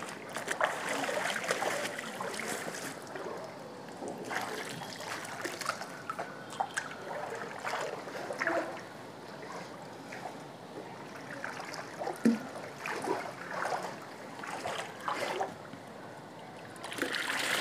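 Water sloshing and splashing as a person wades through a shallow concrete fish tank and drags a hand net through it to catch fish, with irregular small splashes and drips.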